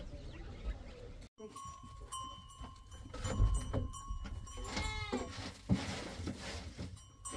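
A short, wavering animal call about five seconds in, over low rumble and intermittent faint steady tones.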